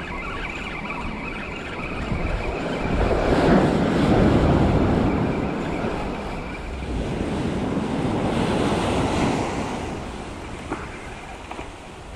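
Sea waves washing onto the beach, the surf swelling up twice, with wind buffeting the microphone.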